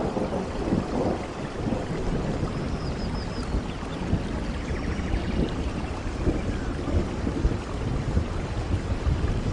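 Steady heavy rain with a low, rolling rumble of thunder underneath.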